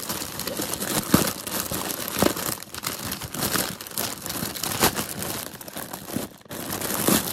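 Thin plastic packaging bag crinkling and rustling as it is handled and opened, with many sharp crackles.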